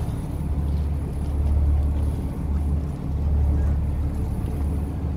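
Low, uneven rumble aboard a small fishing boat at sea, swelling and dipping every second or two.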